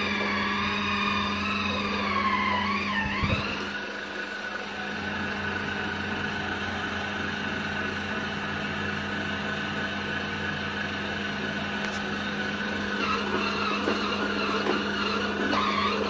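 Electric spin scrubber's motor whining steadily as its spinning pad scrubs wet, soapy floor tiles. The pitch dips briefly about three seconds in and wavers again near the end.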